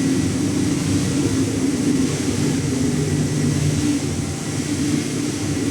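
Steady mechanical drone of the blower and cyclone on a wood-chip hot air drying line, running continuously as the dried material is discharged. Mostly a low rumble with a faint high whine.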